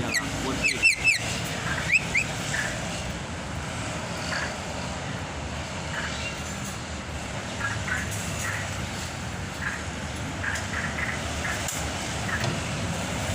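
Caged songbird giving a few loud, quick gliding whistles about a second in, then short faint chirps now and then over a steady background hiss and rumble.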